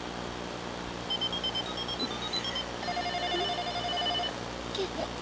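Electronic toy phone playing a short tune of quick beeps that step up and down in pitch, then a fast pulsing electronic ring lasting about a second and a half.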